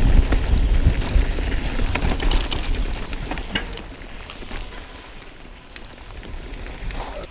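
Mountain bike riding a rocky dirt trail: tyres crackling over gravel and the bike rattling with many sharp clicks, under a low wind rumble on the action camera's microphone that fades about halfway through.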